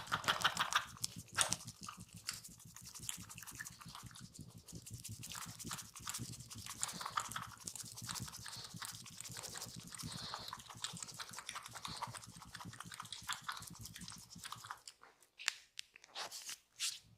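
Hands massaging skin: a dense run of quick rubbing and clicking sounds that thins out into a few separate clicks near the end.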